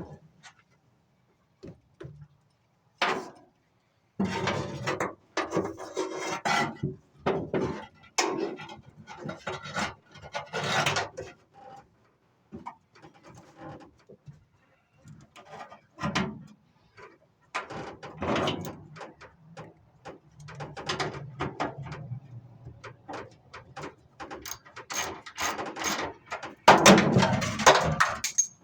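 Irregular knocks, scrapes and rattles of hand tools and metal parts as a battery cable is fitted back on and fastened.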